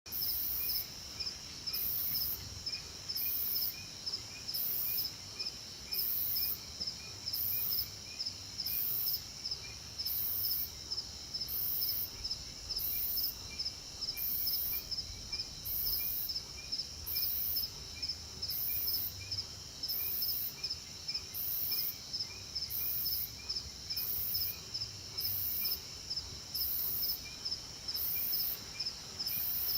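Night forest insect chorus: a very high buzzing call pulses on and off about every second and a half over a steady, fast cricket trill, with fainter chirps beneath.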